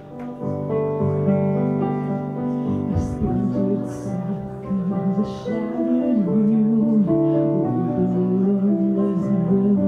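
A singer's voice singing a slow song over held piano chords, the piano entering just after the start and the voice carrying a wavering, vibrato line over it.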